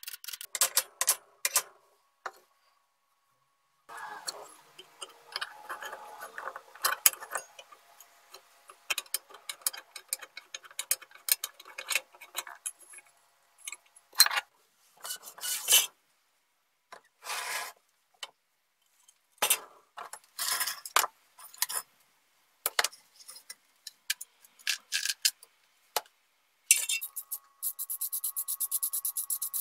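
Metal parts and hand tools clinking, tapping and scraping while a Makita 7100-B electric chisel chainsaw is taken apart: a string of separate clicks and knocks with short pauses. Near the end comes a quick, even run of clicks.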